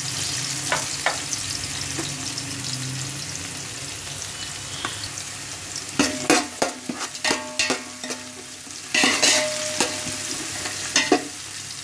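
Chopped onion and garlic sizzling in hot oil in a large pan on a high flame. From about six seconds in, a metal spatula stirs them, with sharp scrapes and clanks against the pan, loudest around nine seconds.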